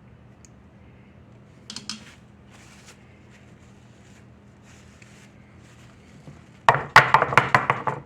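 A small casserole dish full of fudge being jiggled and rapped on the counter to settle it and get the air bubbles out, a rapid run of loud knocks starting near the end. Before that, a low steady hum with a few faint scrapes.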